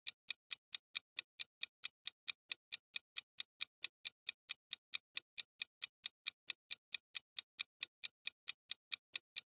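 Countdown-timer clock-tick sound effect: quick, even ticks about four a second, counting down the time left to answer.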